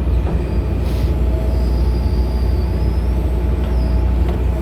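John Deere excavator's diesel engine running steadily while digging, a constant low rumble, with a thin high whine that comes in about a second and a half in and fades out after about three seconds.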